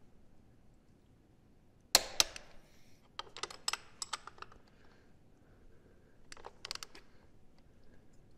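Click-type torque wrench, set to 61 foot-pounds, ratcheting and clicking on the lowering link bolts of a Kawasaki KLX300R. Two sharp clicks come about two seconds in, then runs of quicker ratchet clicks about a second later and again near the end.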